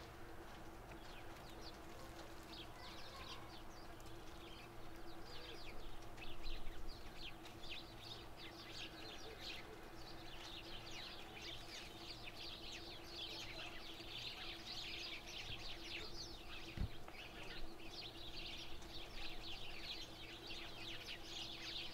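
Faint chirping of a flock of small birds, many short high calls that grow denser midway, over a low steady hum, with one sharp click near the end.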